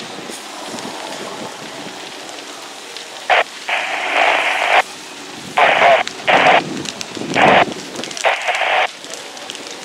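Fire hose nozzle opened and shut in several short bursts, its water stream hissing and spattering onto smouldering brush, over a steady low hiss. The first burst comes about three seconds in, and the longest lasts about a second.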